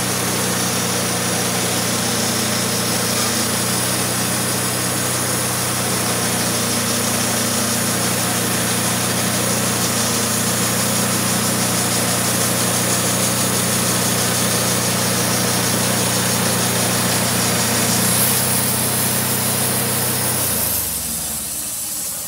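Wood-Mizer LT15 Wide band sawmill running steadily, its engine under load as the blade cuts through a persimmon log. About twenty seconds in, the engine is shut off and winds down.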